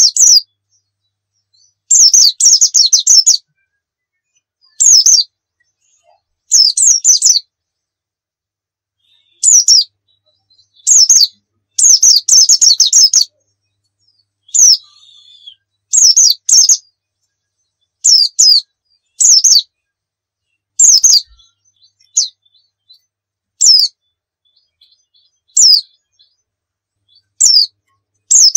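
A pleci dakun white-eye singing in short bursts of rapid, high, quickly sliding notes, a new phrase every second or two, with silent gaps between them. Two runs, about two seconds in and about twelve seconds in, last over a second.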